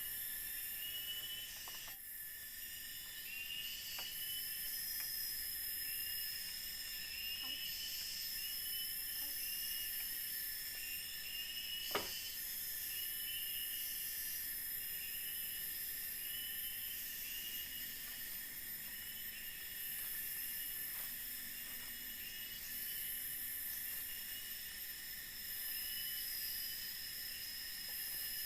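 Forest insect chorus droning at several steady high pitches, the highest layer swelling and fading every couple of seconds. A single sharp knock about twelve seconds in.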